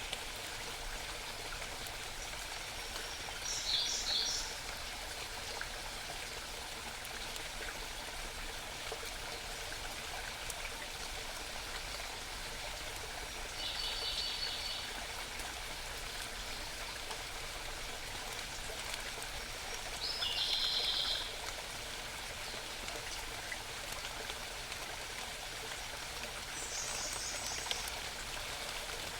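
A small stream babbling steadily, with a songbird's short bursts of rapid high notes coming in four times, every six or seven seconds.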